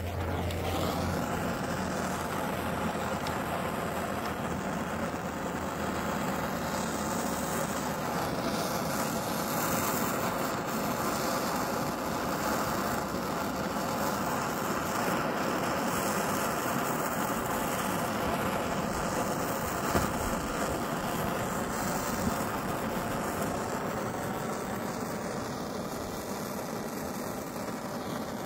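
Hand-held gas torch burning steadily, its flame played over a chainsaw's exhaust deflector and spark arrestor to burn off carbon.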